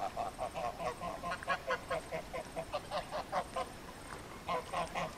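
Mallard-type ducks quacking in a fast run of short calls, several a second, with a brief lull near the end.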